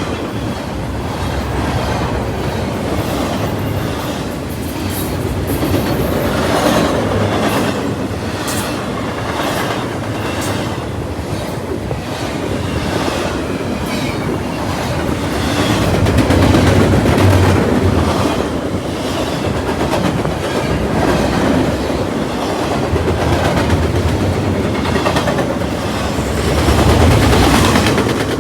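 CPKC freight train cars rolling past, steel wheels clattering over rail joints in a steady run of clicks under a continuous rumble that swells and eases as the cars go by.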